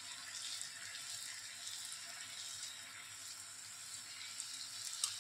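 Rice-flour and potato batter frying in hot oil in a wok: a steady sizzle.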